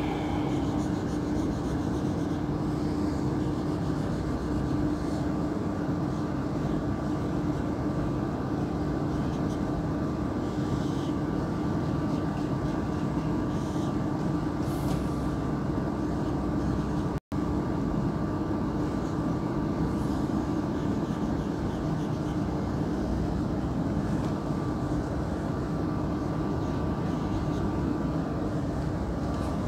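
Steady room hum and hiss with a constant low tone, with a few faint marker strokes squeaking on a whiteboard. The sound drops out for an instant about halfway through.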